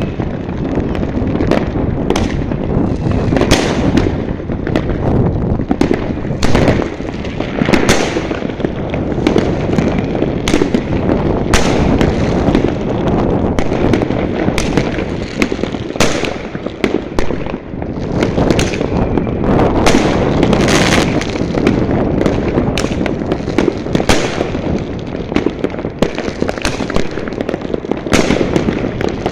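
New Year fireworks going off across a town: a dense, continuous rumble of many overlapping bangs and crackles, several sharp reports a second.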